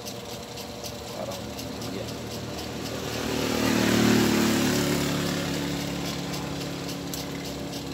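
A motor vehicle passing by: its engine and road noise swell to a peak about halfway through, then fade away, over a steady background hum.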